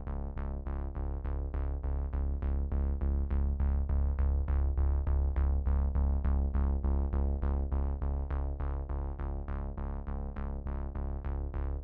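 Background electronic music with a steady pulse of about four notes a second over a held low bass.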